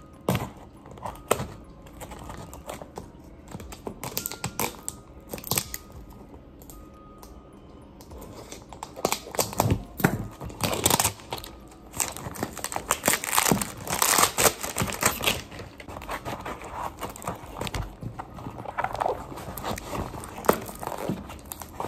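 Scissors snipping into the clear plastic wrap of a cardboard parcel, then the wrap crinkling and tearing as it is pulled off. Scattered sharp clicks give way to dense crackling from about nine seconds in.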